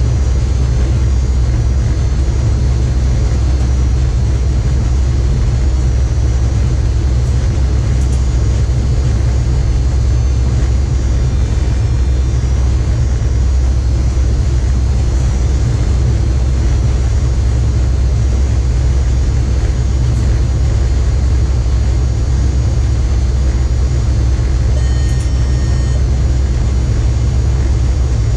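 Steady low rumble of a train running at speed, heard from inside the driver's cab, with faint steady high-pitched whines above it. About 25 s in, a short electronic tone sounds once for about a second.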